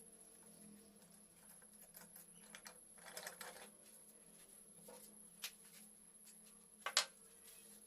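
Light clicks and taps from handling, a small cluster about three seconds in and a sharper double click about seven seconds in, over a faint steady hum.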